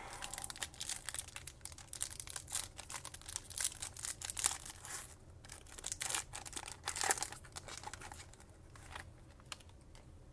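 Foil trading-card pack wrapper being torn open and crinkled by hand: a quick series of crackles that dies down in the last couple of seconds.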